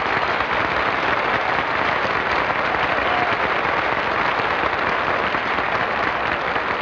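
Large audience applauding steadily, heard through the dull, narrow sound of an early-1950s television recording.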